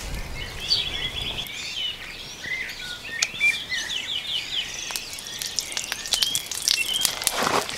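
Small birds chirping and twittering steadily, with a few sharp clicks and taps.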